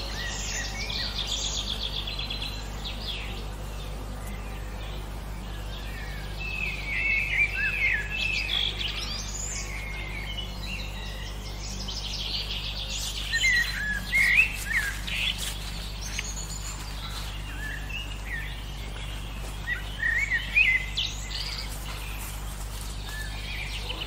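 A chorus of songbirds singing: varied chirps, quick trills and short whistled phrases. The song swells in louder bursts about a third of the way in, around the middle and near the end, over a steady low background hum.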